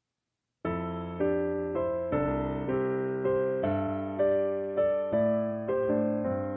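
Instrumental intro of a song on a piano-like keyboard, starting just over half a second in: notes struck about twice a second, each fading before the next, in a slow steady pulse.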